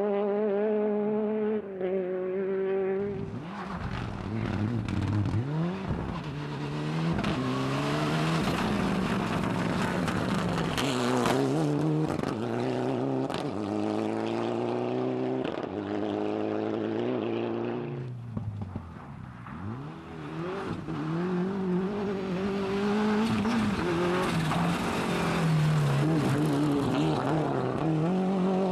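Rally cars on a loose dirt stage, one after another: engines revving hard, pitch rising and dropping back at each gear change, over the hiss of tyres on loose dirt. There is a brief lull about two-thirds through before the next car's engine builds up through the gears.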